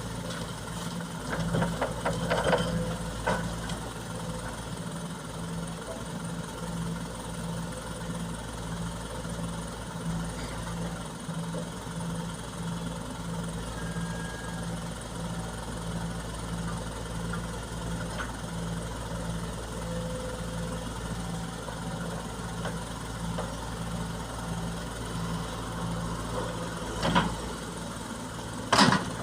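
Heavy diesel engine of a dump truck or hydraulic excavator idling steadily with an even, regular pulse. A few clanks come about two seconds in and again near the end.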